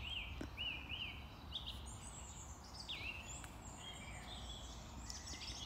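Faint birdsong: a series of short, repeated whistled chirps, several a second, over a low steady background hiss.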